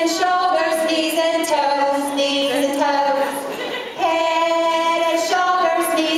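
Women singing a song with long held notes, the sound briefly dipping just before the four-second mark before the singing resumes.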